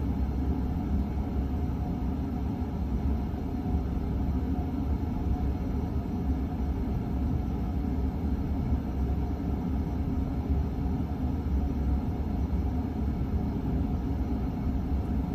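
Steady low rumble of an Emerson friction-drive ceiling fan turning at its lowest speed, close to stalling, mixed with a furnace running.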